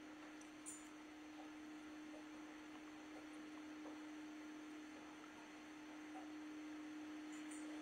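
Faint steady hum at a single pitch, over low hiss.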